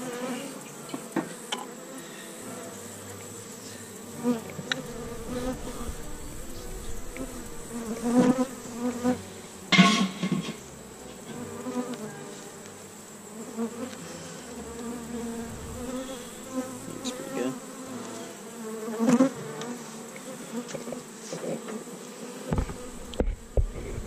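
Honey bees buzzing in a steady hum around an open hive, with occasional sharp knocks from hive equipment being handled; the loudest knock comes about ten seconds in.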